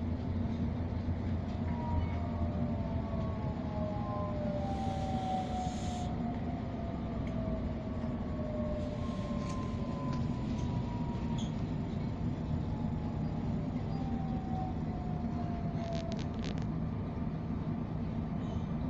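Passenger train running on the rails, heard from inside the carriage: a steady low rumble, with faint whining tones that slowly fall in pitch through the middle and a few light clicks near the end.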